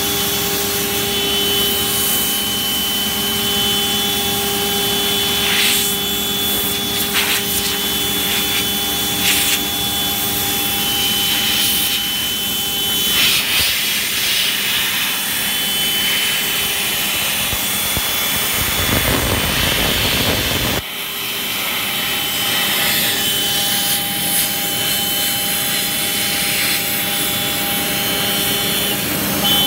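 CNC router spindle running at speed with a steady high whine while its spiral bit cuts through MDF sheet, with the rushing hiss of the cut and dust. The sound breaks off abruptly about two-thirds of the way in and the same whine picks up again.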